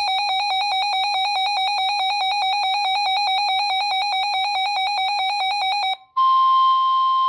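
Weather alert radio's built-in alarm beeping rapidly, about eight pulses a second, then about six seconds in it opens onto the steady NOAA Weather Radio 1050 Hz warning alarm tone, signalling a toned warning broadcast.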